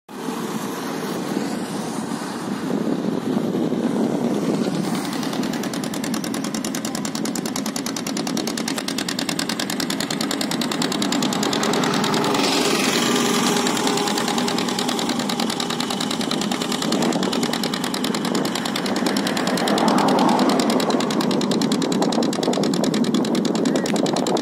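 Small boat engine of a pair of wooden fishing boats running steadily, a fast even chatter that swells and eases slightly as the boats move.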